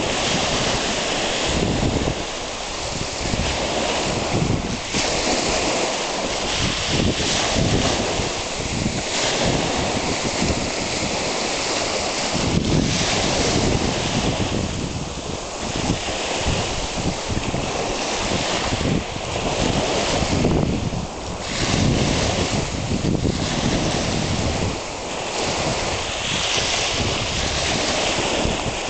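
Small waves washing up and back over a gravel beach, swelling and easing every few seconds, with wind buffeting the microphone.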